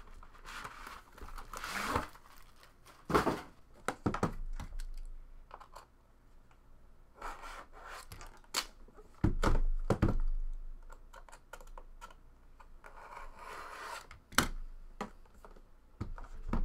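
Plastic shrink wrap tearing and crinkling as it comes off an aluminium card briefcase, with scattered clicks and knocks of the metal case being handled on a table. Two heavier thumps come about midway.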